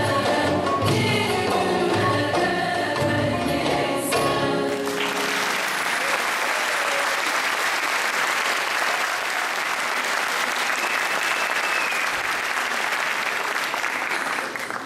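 A women's choir with bağlama accompaniment singing the final bars of a Turkish folk song, the music ending about five seconds in. Audience applause follows and continues steadily.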